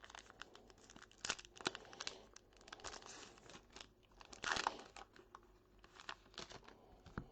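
Trading-card pack wrapper crinkling and tearing as it is handled and opened, in quick crackles with one louder rip about four and a half seconds in.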